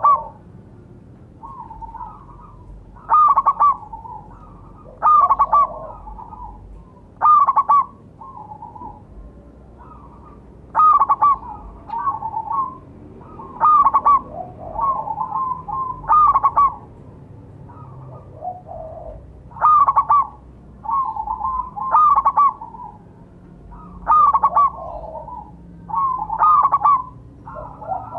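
Zebra dove (perkutut) song: short bursts of quick, stuttering cooing notes, repeated every two to three seconds, some loud and some softer in between.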